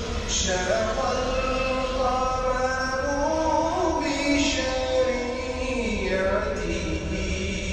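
Background music: a voice chanting long held notes that slide slowly up and down.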